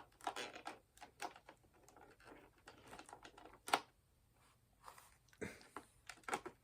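Scattered light clicks and taps of a plastic toy figure and its packaging being handled while it is unpacked, a few louder knocks in the second half.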